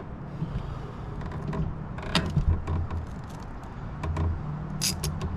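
A ratcheting cable cutter being handled and its jaws worked open, giving a few sharp clicks about two seconds in and again near the end.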